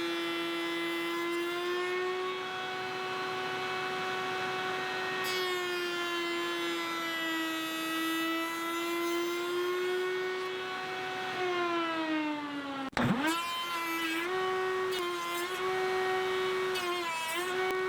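Electric power drill motor whining at high speed for about eleven seconds, its pitch wavering slowly, then dropping as it stops. It starts again at once and runs in short trigger pulses, easing off briefly several times.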